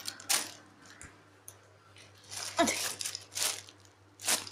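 Plastic wrappers crinkling in four or so short bursts as squishy toys in clear plastic packaging are handled and packed into a bag.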